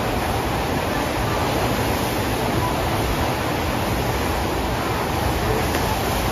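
Steady rushing water from a FlowRider surf simulator, its pumps driving a continuous sheet of water up the padded ramp.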